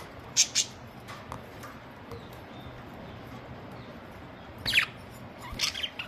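Budgerigars calling: a quick pair of sharp, high chirps about half a second in, then a harsher falling squawk and a short burst of chirps near the end.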